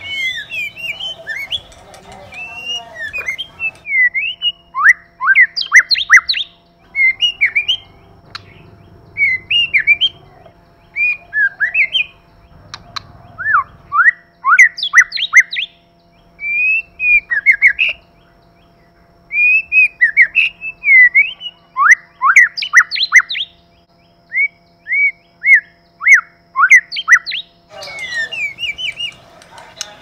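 White-rumped shama singing: a varied string of clear whistled phrases and quick falling trills in short bursts with brief pauses between, over a faint steady hum.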